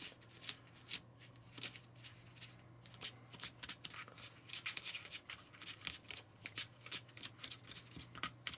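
A fingertip mixing and pressing crumbly waffle dough in a thin plastic candy-kit tray: a run of small, irregular clicks and scratches on the plastic, over a faint steady low hum.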